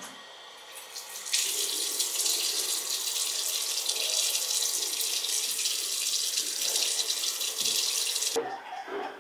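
Tap running into a bathroom washbasin, water splashing as it is scooped up to wash face and hair. The flow starts sharply about a second in and stops abruptly near the end.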